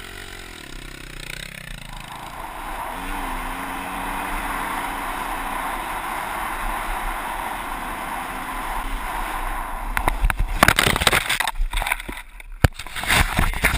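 KTM 200EXC two-stroke dirt bike engine revving up, then running steadily under way on the trail. About ten seconds in, a run of loud crashing knocks and clatter as the bike goes off the trail into a tree and goes down.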